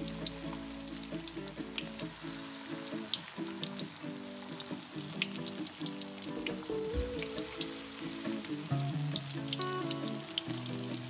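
Spring rolls deep-frying in very hot oil in a wok: a steady sizzle dotted with quick pops and crackles. Soft background music with held notes plays underneath.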